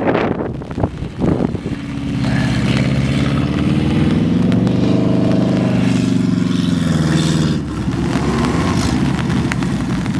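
Off-road car's engine pulling under load: a couple of seconds in it revs up, holds high through the middle, then drops back to a lower steady run near the end. In the first second and a half there are a few knocks and wind noise.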